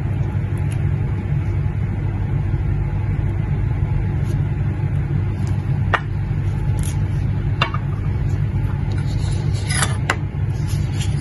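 A steady low rumble, with a few light clinks of a small glass bottle against a glass bowl as oil is poured, one about six seconds in and a few more near the end.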